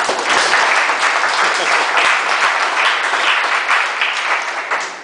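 Audience applauding: dense clapping that dies away near the end.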